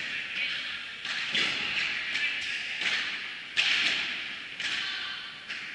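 Padel rally: the ball is struck by rackets and bounces off the court, a string of sharp knocks every half second to a second, each ringing on briefly in the hall. The loudest hit comes about three and a half seconds in.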